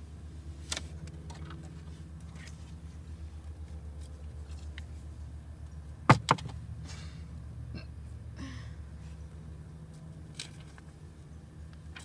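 Scattered taps and knocks from hands handling dolls and props against a cardboard dollhouse. The loudest is a quick double knock about six seconds in. Under them runs a steady low hum.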